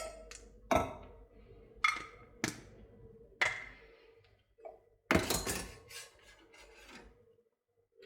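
Kitchen utensils knocking: a spoon and containers tapped and set down as matcha powder goes into a milk pitcher, a few separate sharp knocks, then a longer clatter about five seconds in.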